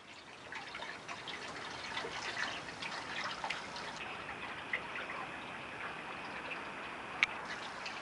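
Spring water running and trickling with steady splashing and small drips, and one sharp click about seven seconds in.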